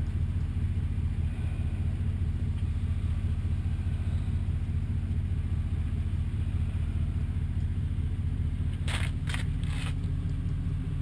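Vehicle engine idling steadily with a low rumble. About nine seconds in come three short hisses.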